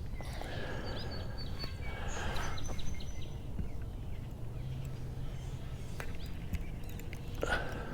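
Birds calling over a steady low rumble: short thin high whistles about a second in and again around two to three seconds, and a louder brief call near the end.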